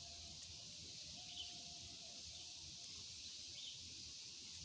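Quiet outdoor ambience: a steady high hiss with a few faint, short bird chirps, one about a second in and another near the end.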